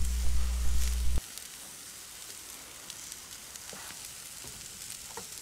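Sliced meat sizzling on a hot camping griddle plate: a steady hiss, with a few faint scrapes and taps of a metal turner. A low hum beneath it cuts off about a second in.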